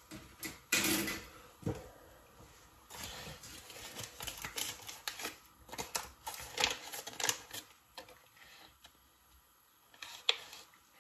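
Irregular small clicks and crinkling rustles of a foil butter wrapper being opened and handled, busiest in the middle stretch.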